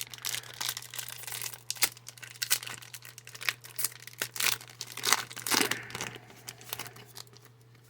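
A Yu-Gi-Oh Duelist booster pack's foil wrapper being torn open and crinkled by hand, with irregular crackles that die away near the end.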